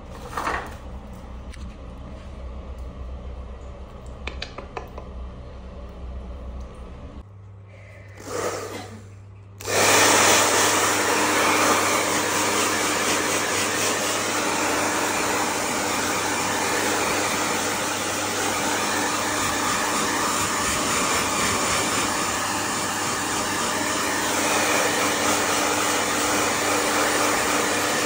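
Blow dryer starting about ten seconds in and then running steadily as a loud, even rush of air, blown onto a bathed dog's wet coat. Before it there is a quieter low hum with a few soft clicks.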